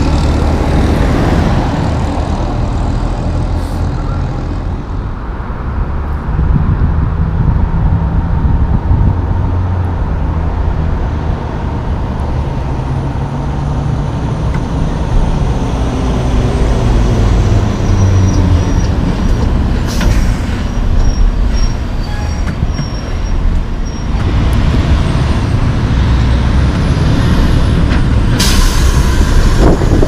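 Heavy diesel trucks and cars driving past, with a steady low engine rumble. A short click about two-thirds of the way through, and near the end a loud hiss of air brakes from a loaded log truck at the intersection.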